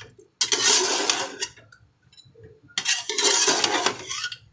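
Metal spoon stirring and scraping a thick, wet mixture of mutton, potatoes and yogurt in a steel pot: two long scraping strokes, the second starting about halfway through.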